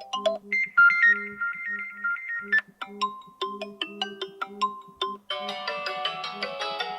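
Built-in Xiaomi Redmi Note 9 Pro ringtones playing: short electronic melodies over a repeating low pulse, cutting to a different, denser tune about five seconds in.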